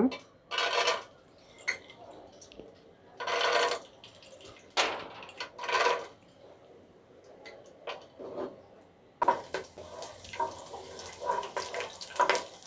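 Peanuts frying in hot oil in a pot, with several short bursts of sizzling as they go into the oil. From about nine seconds in there is a steadier frying sizzle, with a wooden spatula scraping and clicking against the pot.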